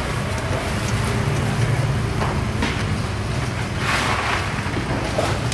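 Steady low rumble of street traffic with engines running close by, and a brief noisy swell about four seconds in.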